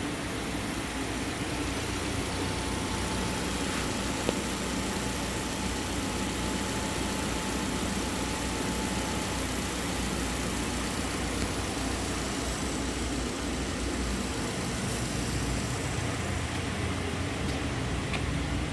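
2010 Subaru Legacy's 2.5-litre flat-four engine idling steadily.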